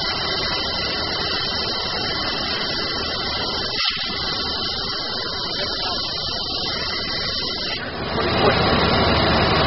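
Abrasive waterjet cutting head running: the high-pressure jet makes a steady, loud hiss as it blasts through a metal plate. There is a momentary break about four seconds in, and the hiss grows louder and harsher near the end.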